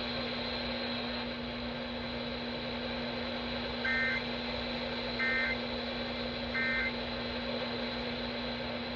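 Three short two-tone data bursts, a little over a second apart: the Emergency Alert System End of Message (EOM) signal. Behind them is a steady hiss and low hum from the received broadcast.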